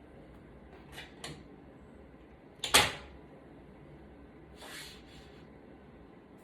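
Light clicks and knocks of small tools and parts being handled on a work surface during an iPad repair: two small clicks about a second in, one sharper knock near three seconds, and a brief soft scuff near five seconds.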